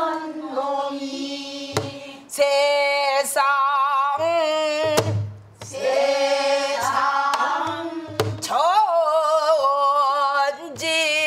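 A woman singing pansori in a strained, throaty voice, holding long notes with a wide, wavering vibrato, accompanied by a buk barrel drum. The drum is struck with a stick at uneven intervals, each stroke a sharp crack with a low thump.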